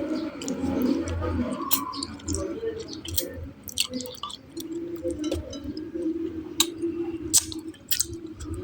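Close-up mukbang eating sounds: chewing with scattered wet mouth clicks and smacks.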